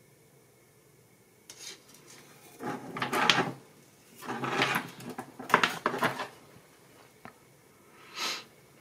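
Wire and seed beads handled and set down on a tabletop: rattling, clinking and scraping in a few short spells, the longest about three and five seconds in, with a brief one near the end.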